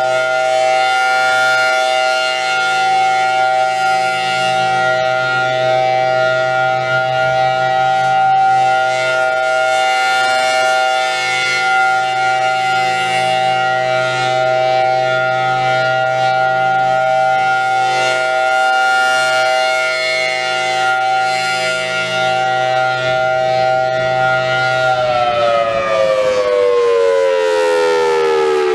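Federal Signal Thunderbolt 1000T tornado siren sounding its steady alert tone while rotating slowly at 8 RPM. About 25 seconds in, the low hum underneath stops and the pitch starts falling steadily as the siren winds down.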